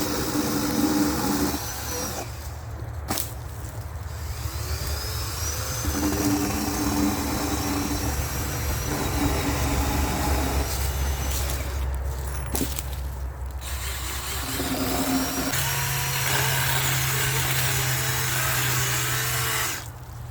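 Battery-powered power tools running in short bursts, starting and stopping every second or two.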